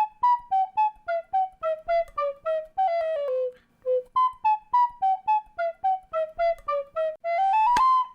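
A flute playing a light melody of short, separate notes in two similar falling phrases, the second climbing quickly to a held high note near the end.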